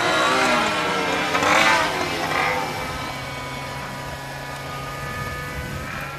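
Radio-controlled model airplane's engine running at high revs, its pitch swinging up and down and loudest for the first couple of seconds as the plane dives and pulls out, then a steadier, quieter drone with the plane farther off.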